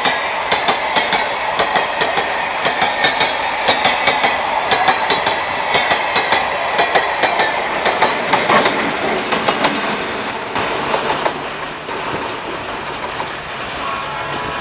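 Empty steel-coil freight wagons rolling past, their wheels clicking and clacking over rail joints in a fast irregular stream that thins out and quiets after about ten seconds.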